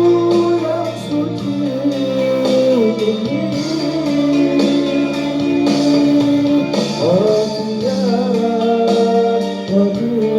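A song playing: a voice holding long, gliding notes over guitar backing.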